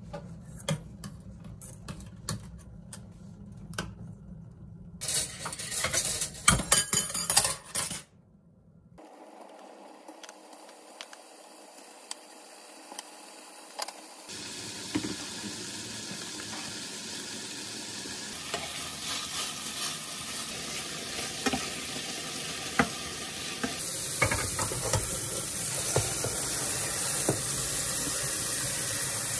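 Metal tongs clicking and clattering against a stainless steel pot as noodles are stirred into boiling water. Then beef slices sizzle steadily in a frying pan, and near the end tap water runs over vegetables in a mesh strainer.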